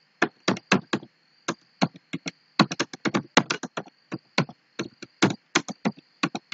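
Computer keyboard keys clattering in quick, irregular keystrokes, several a second, as someone types fast in a timed typing test. A faint steady high whine sits behind the keystrokes.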